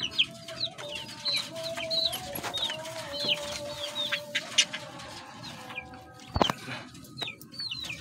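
Budgerigars chirping over and over in quick, short falling notes, with a lower drawn-out call beneath them for the first few seconds. A single sharp knock comes about six and a half seconds in.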